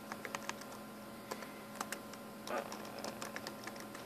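Typing on a laptop keyboard: light, irregular key clicks.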